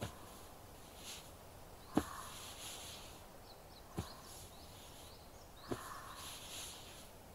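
Shoulder massage: hands rubbing and pressing on the shoulders, with four thumps about two seconds apart and a soft brushing hiss after each.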